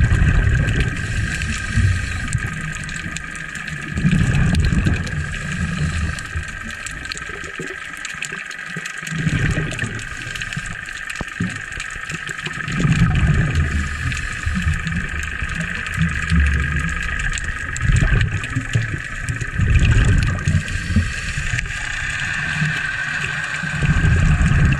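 Underwater sound of a scuba diver's regulator: exhaled air bubbles give a low bubbling rumble every few seconds, over a steady high hum.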